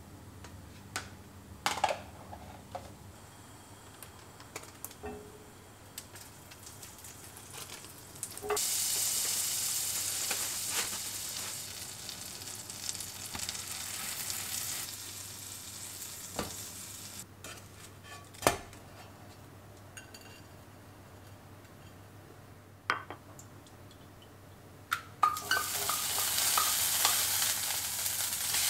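Butter sizzling in an enamelled cast-iron frying pan as a slice of bread is laid in and fried, starting about a third of the way in and easing off a few seconds later. Small clicks and a sharp knock of handling come before and between, and the sizzling rises again near the end.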